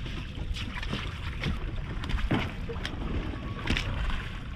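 Wind buffeting the microphone and water slapping a small fishing boat's hull: a steady low rumble with scattered short knocks and clicks.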